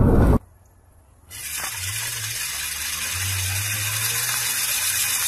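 Loud rumbling noise cuts off abruptly, a second of near silence follows, then a steady hiss with a faint low hum sets in.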